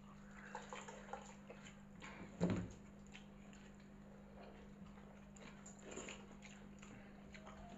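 Eating sounds as watered rice is eaten by hand from steel bowls: scattered small smacks and clicks of chewing and of fingers in wet rice, over a steady low hum. One louder thump comes about two and a half seconds in.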